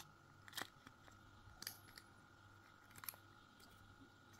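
Faint handling noise: a few soft clicks and scrapes of plastic parts, about a second apart, with a double click about three seconds in, as a hair clipper's motor housing is worked loose by hand. A faint steady high tone runs behind.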